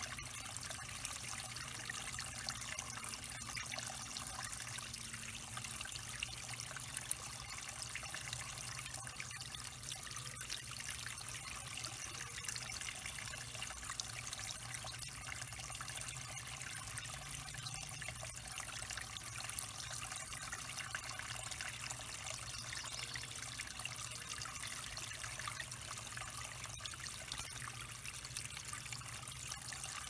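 Small backyard waterfall trickling steadily over stones into a shallow pond.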